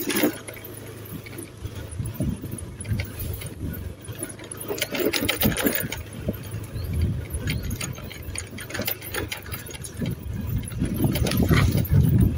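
Vehicle engine running at low speed over a rough, unpaved dirt road, with irregular rattles and knocks from the bumpy ride.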